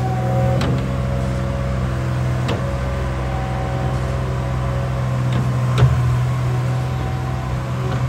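Skid steer engine running steadily under work, with a few sharp metallic knocks, the loudest about six seconds in.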